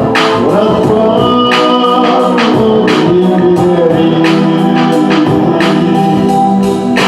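Russian pop song's instrumental passage: sustained organ-like keyboard chords over a steady drum beat of about two hits a second.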